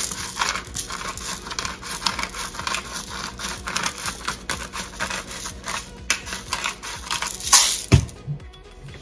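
Hand-twisted pepper mill grinding peppercorns: a rapid, dry crackling rattle of many fine clicks, broken by short pauses, with a loud knock near the end.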